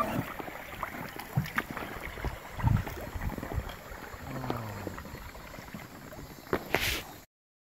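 Kayak paddles dipping and splashing in river water with scattered knocks, from paddlers in inflatable kayaks. A louder burst comes near the end, then the sound cuts off suddenly.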